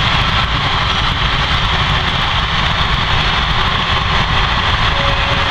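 Express train's passenger coaches passing at speed: a steady, loud rolling noise of wheels on rail.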